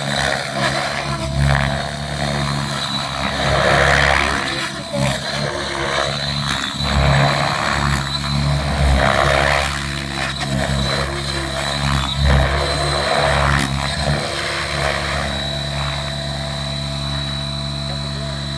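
Align T-REX 700E electric RC helicopter in flight: its main rotor blades beat steadily over a steady high whine. The sound swells louder and falls back several times as it moves about in low passes.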